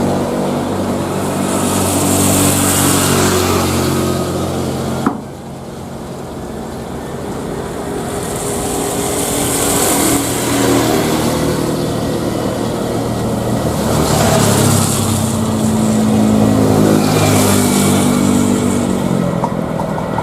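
Jet airliner engines running loud at high power, with a hiss that swells and fades several times, broken by an abrupt cut about five seconds in.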